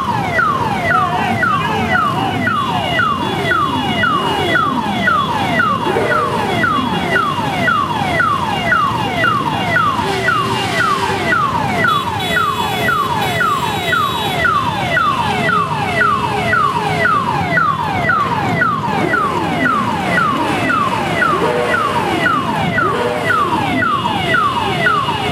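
Electronic siren sounding a fast falling sweep, about three a second, without a break. Underneath it a crowd of motorcycle engines run, some of them revving.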